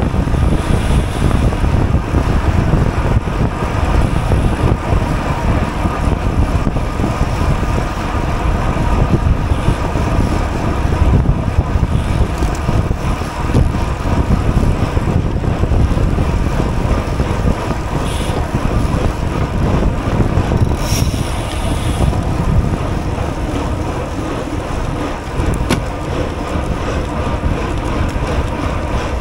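Wind rushing over a racing cyclist's GoPro microphone at speed, with steady road and tyre rumble underneath. A few brief clicks come through in the second half.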